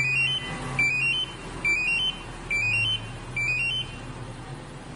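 Two-way Compustar LCD remote-start fob playing its confirmation tune: five quick beep figures, each stepping up in pitch, under a second apart, as it reports the remote start back from the car. A low hum runs underneath.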